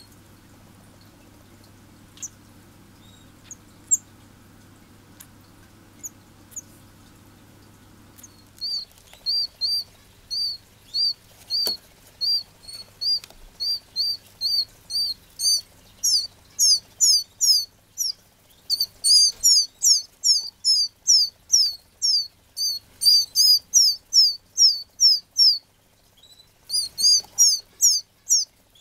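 Red canary nestling chirping to beg for food: short, high chirps repeated about twice a second, starting about a third of the way in and growing louder and higher-pitched, with a short pause near the end. Before that there are only a few faint chirps over a low hum.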